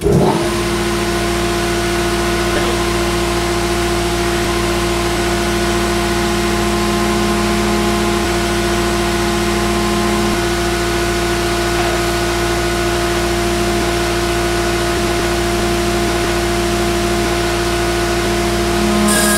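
Series 620 hydraulic power unit starting at its start switch and running steadily: the motor-driven hydraulic pump gives a loud, even hum over a hiss while the oil circulates through the open bypass valve. The tone shifts about ten seconds in as the pump flow valve is adjusted. Near the end it grows a little louder and sharper as the bypass valve is closed.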